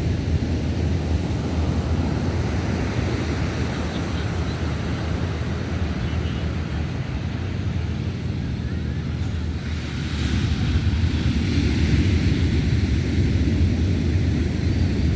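Heavy surf from a large swell breaking and washing up a sand beach in a continuous rush, with wind buffeting the microphone. The surf grows louder about ten seconds in as a bigger wave comes in.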